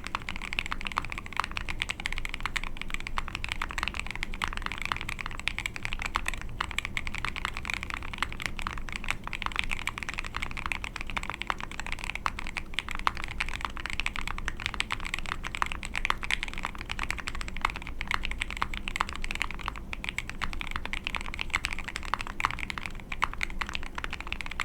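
Continuous typing on an ai03 Vega mechanical keyboard with a POM plate, lubed Marshmallow linear switches and KAT keycaps: a dense, steady stream of keystrokes.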